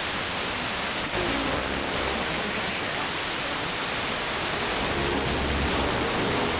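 Steady FM interstation hiss from an RTL-SDR receiver in wide-band FM mode, tuned between stations on the FM broadcast band. Faint traces of a weak station come through the noise.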